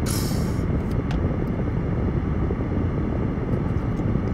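Steady low rumble of a car running, heard from inside the cabin, with a brief hiss right at the start and a few faint ticks.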